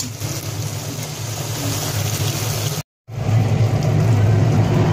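Food sizzling as it fries in margarine in a wok, with a steady low hum under it. After a brief cut about three seconds in, the hum is louder, with faint crinkling as the foil wrapper of a chicken bouillon cube is peeled open.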